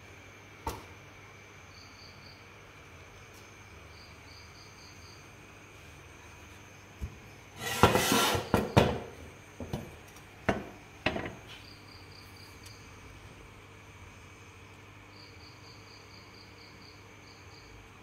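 Cricket chirping in short repeated trills over a faint steady background. About eight seconds in comes a loud burst of clattering and rustling, then two sharp knocks.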